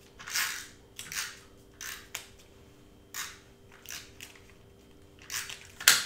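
Irregular short rustles and clicks of cardstock being handled and glued on a cutting mat, about ten in all, the sharpest one just before the end, over a faint steady hum.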